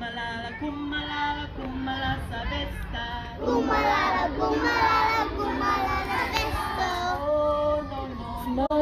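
Children singing together, several voices holding the notes of a tune, with the singing growing fuller partway through.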